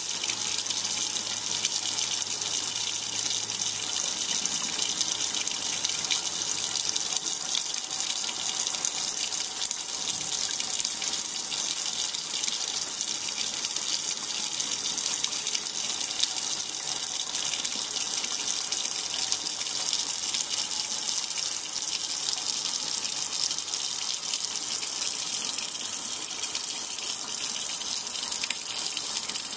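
Kitchen tap running steadily into a stainless steel sink, the water splashing over a red-eared slider turtle held under it.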